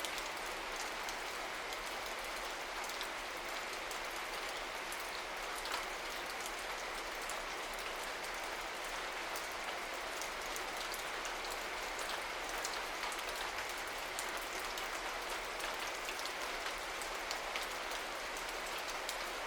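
Steady rain falling, an even hiss with the ticks of individual drops scattered through it.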